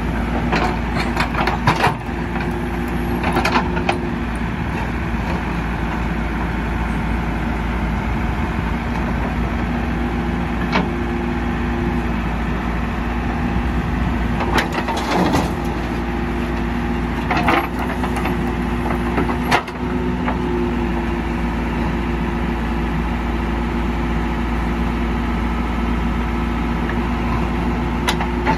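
JCB 3DX backhoe loader's Kirloskar diesel engine running steadily while the backhoe digs hard red soil. Sharp scraping knocks and cracks as the bucket bites into and breaks the ground come in a cluster near the start and again around the middle.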